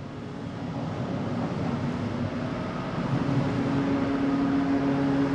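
Electric U-Bahn train at a station platform: a steady mechanical hum over general station noise, fading in at the start. A stronger held tone joins about three seconds in.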